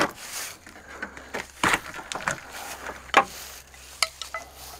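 A few sharp, separate knocks and clicks of hand tools at work on an old semi truck's cab jack cylinder pin, the loudest about a second and a half in and about three seconds in.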